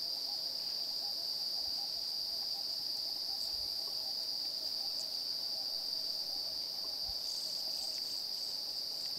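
Steady, high-pitched drone of an insect chorus in dry savanna, unbroken and even in level.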